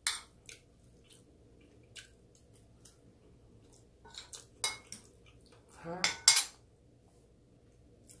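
Cutlery clinking and scraping against a dish in scattered short knocks, loudest in a cluster a little after six seconds in.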